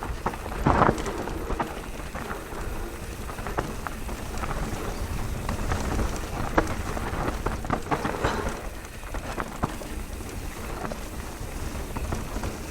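Mountain bike riding fast down a rough trail: wind buffeting the microphone, tyres rolling over loose rock, and a constant patter of clicks and knocks from stones, chain and frame. A few louder knocks stand out, one about a second in.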